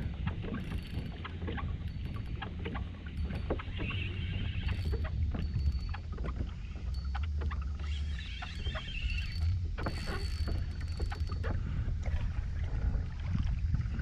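Kayak on the water, with a steady low rumble of wind on the microphone and scattered small clicks and knocks throughout.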